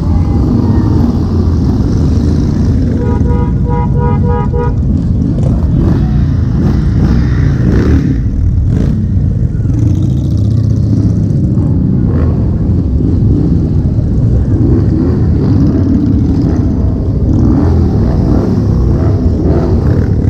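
Motorcycles, cruisers and touring bikes, running past at low speed in a steady procession. About three seconds in, a horn sounds a quick run of about five short beeps.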